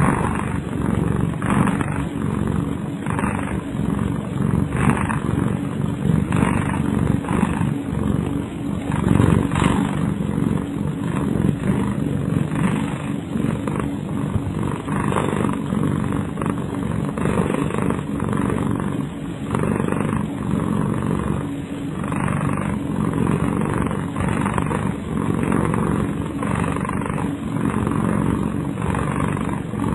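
A pet cat snoring in its sleep, with snoring breaths repeating about once a second.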